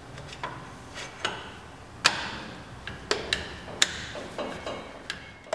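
Stainless steel exhaust header tubes clinking and knocking as they are fitted by hand onto the engine: about a dozen irregular sharp metal taps, the loudest about two seconds in with a brief ring.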